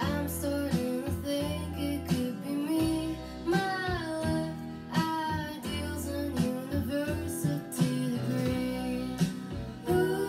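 Recorded song playing over loudspeakers, with guitar, a bass line and a singing voice.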